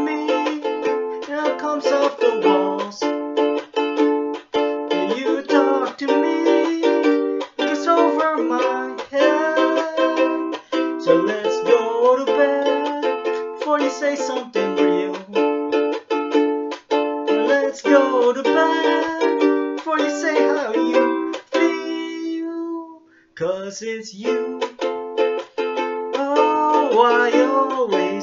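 Les Paul-style electric ukulele strummed in a quick, steady rhythm of chords. About three quarters of the way through, a chord is left ringing, there is a momentary break, and then the strumming picks up again.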